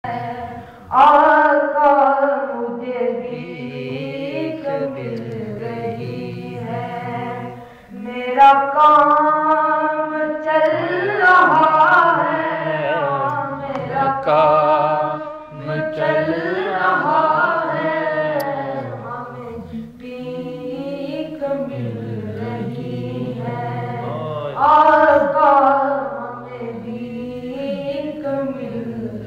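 Boys' voices singing a naat, an unaccompanied Islamic devotional poem, in long held, wavering phrases with short breaths between them.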